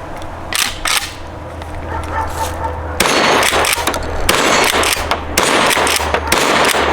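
Fed Arm 20-gauge pump-action shotgun: two sharp clacks of the action being worked, then from about three seconds in a run of loud shotgun shots in quick succession. The old, crusty shells fire normally.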